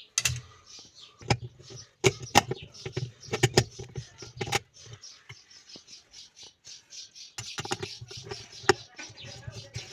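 Irregular sharp knocks and clicks of hand tools working on a washing machine's pulsator, clustered between about two and five seconds in and again twice near the end.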